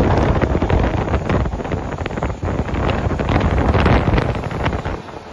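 Wind buffeting the microphone from a moving LHB-coach passenger train, with the train's running noise underneath. The gusting eases off about five seconds in.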